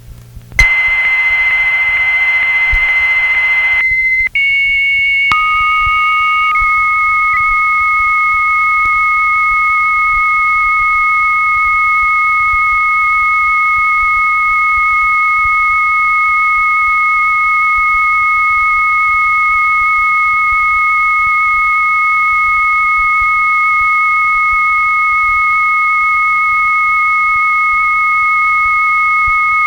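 Two 300-baud modems connecting over a telephone line. First comes a single high steady tone with hiss for about three seconds. After a brief break, two steady whistling tones, one high and one lower, come in about five seconds in and hold unbroken: the two modems' carriers, connected.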